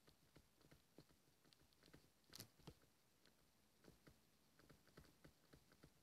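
Near silence with faint, irregular taps and clicks of a stylus writing on a tablet screen, one slightly louder tap about two and a half seconds in.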